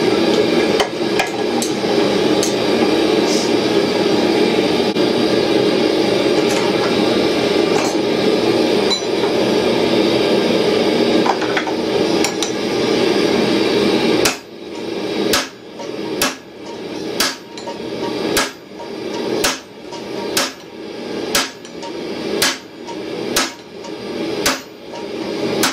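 A steady rushing noise runs for about the first half and cuts off suddenly. Then a hammer strikes the red-hot steel swage block on the anvil about once a second, a dozen sharp blows in a row.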